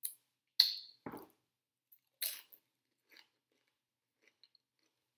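Mouth sounds of tasting guacamole: lips smacking and sucking guacamole off the fingers. A few short wet smacks come in the first two and a half seconds, then fainter ticks.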